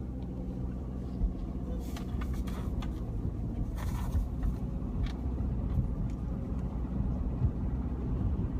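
2015 Subaru Outback's 2.5-litre flat-four boxer engine running with a steady low rumble that slowly grows louder. The noise is abnormal: it is bad and not typical boxer-engine sound, an intermittent fault that comes on with acceleration and while the engine is cold.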